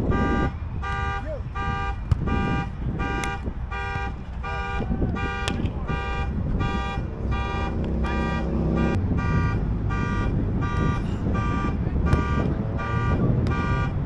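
Car alarm beeping steadily at about two beeps a second, over a low background rumble.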